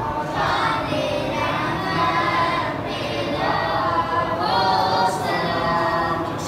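A congregation of men chanting an Islamic devotional recitation together in unison, a slow melodic chant with long held notes.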